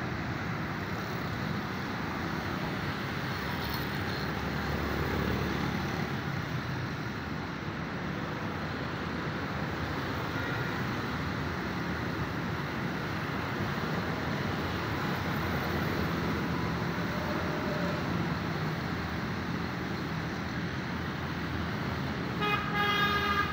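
Steady street traffic noise, with a brief pitched sound rising above it near the end.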